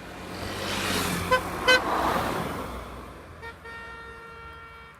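A car passes close by, rising and fading, and toots its horn twice in quick succession about a second and a half in. A longer, quieter horn note follows near the end.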